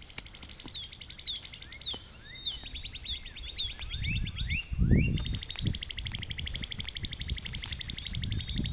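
Songbirds calling: rapid buzzy trills and repeated short downward-sliding chirps, overlapping throughout. A few low muffled thumps about four to five seconds in.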